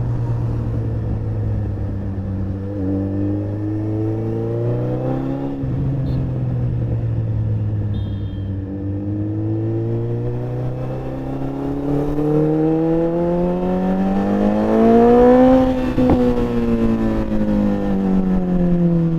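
Suzuki Hayabusa's inline-four engine under way, climbing in pitch, dropping about five seconds in as a gear is taken, then climbing slowly to a peak and easing off near the end.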